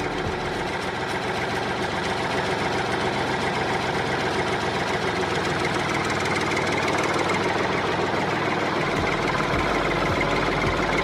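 Small engine of a homemade mini bulldozer running steadily at idle, with a rapid, even firing beat.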